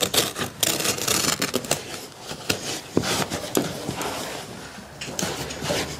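Carpet being cut with a knife at the skirting board and the cut edge tucked down over the gripper: a run of rough scraping and rustling with many sharp clicks.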